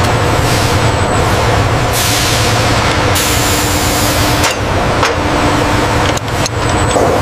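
Loud factory-floor machinery noise: a steady low hum under a wide hiss that cuts in and out abruptly several times, like bursts of compressed air.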